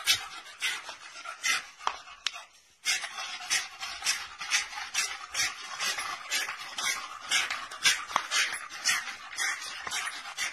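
English bulldog panting hard, about two noisy breaths a second, with a brief pause near 3 seconds in.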